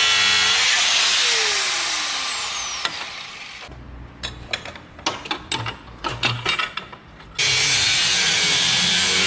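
Power grinder cutting metal pipe, then spinning down with a falling whine as it fades. Light metallic clicks and knocks follow. Near the end the grinder runs again at full speed.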